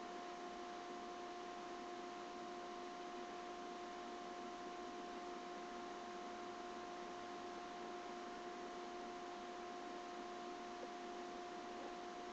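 Steady electrical hum with a couple of overtones over a constant even hiss, unchanging, with no other sound.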